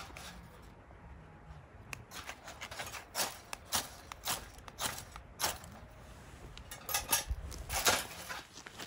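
Irregular light clicks and clinks of objects being handled, about one or two a second, with a low rumble from handling at times.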